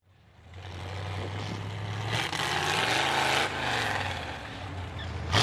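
Lifted Chevy mud truck's V8 with open upright exhaust pipes running as it drives through mud, revving up and falling back around the middle. A short sharp knock comes right at the end.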